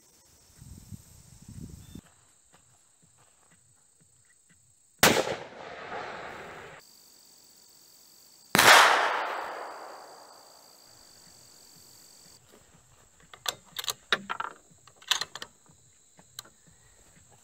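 Two rifle shots from a custom .308 Remington 700, about three and a half seconds apart, each a sharp crack with a long echoing tail. Near the end comes a run of short clicks and knocks as the rifle is handled.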